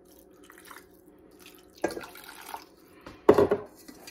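Water poured from a glass measuring cup into a multi-cooker's inner pot over raw pork steaks, splashing in two short pours, the second louder.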